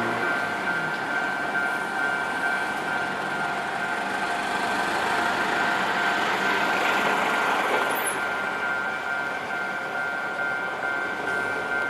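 Japanese level-crossing warning bell ringing: an electronic alarm repeating a high pitched tone in short even pulses over road and rail noise. A broad rushing noise swells about six to eight seconds in.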